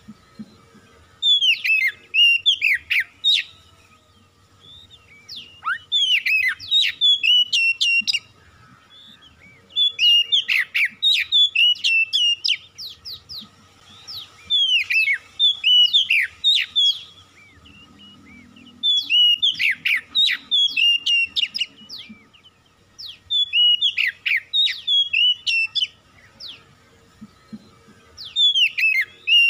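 Oriental magpie-robin (kacer) singing loud phrases of two to three seconds each, about seven in all, with short pauses between. The phrases are falling whistles mixed with sharp clicks.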